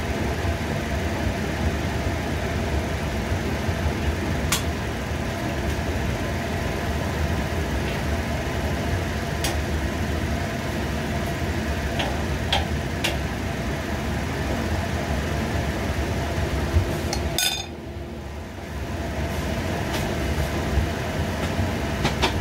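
Kitchen range-hood extractor fan running with a steady whirring hum, with a few light clinks of a utensil against a metal frying pan; the hum drops out briefly near the end and comes back.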